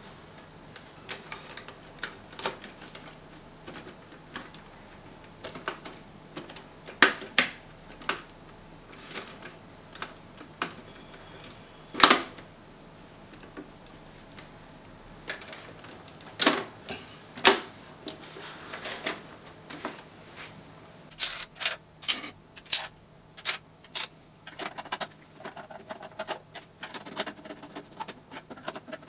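Plastic casing of a Sony CFS-W600 double-cassette boombox being handled, giving irregular sharp clicks and knocks, with a quicker run of clicks about three quarters of the way through.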